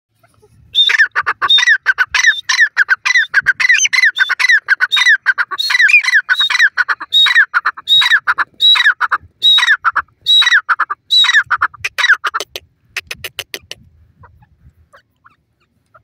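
Grey francolin calling: a long, loud series of harsh repeated notes, each sliding down in pitch, coming a few per second. The series starts about a second in and breaks off with a few fainter notes a little after twelve seconds.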